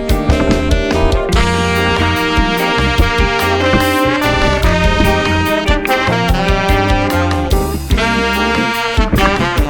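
Background music: an instrumental passage with saxophone and brass over a steady beat.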